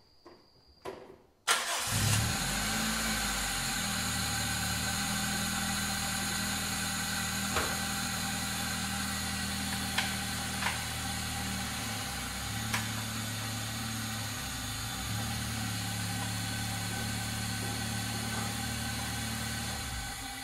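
Toyota Corolla AE112 four-cylinder engine starting on the first turn of the key after a gearbox and clutch replacement: it catches suddenly about a second and a half in, flares up briefly in revs, then settles to a steady idle with a few faint clicks, and shuts off near the end.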